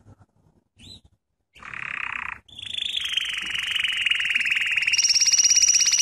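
Canary singing: a few soft notes, then a buzzy trill that runs into a rapid, even trill. A second, higher trill joins near the end.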